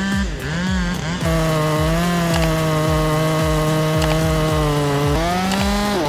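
Chainsaw engine running at high revs with a steady high pitch. The pitch sags and recovers within the first second, then shifts again about five seconds in.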